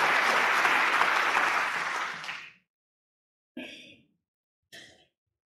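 Audience applauding in a snooker arena, dying away about two and a half seconds in, followed by two brief faint sounds about a second apart.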